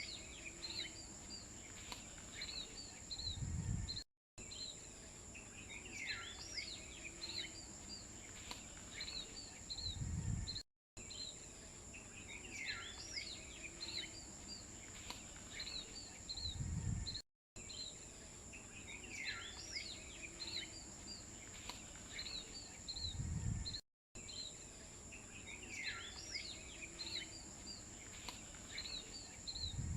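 Outdoor ambience of chirping birds over a steady high insect drone, with a short low thud in each cycle. The same few seconds repeat about every six and a half seconds, each time cut by a brief dropout, as a looped background.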